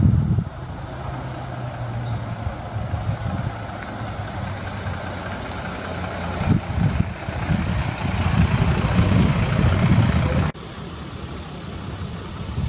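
Fire engine's diesel engine running as the truck approaches, getting louder as it nears, with no siren. About ten seconds in the sound cuts off abruptly to a quieter, steady vehicle hum.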